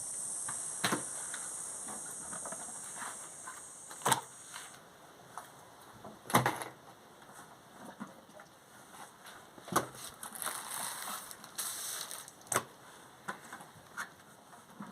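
High-pitched insect chirring that stops about five seconds in, with sharp clicks and knocks scattered a few seconds apart throughout.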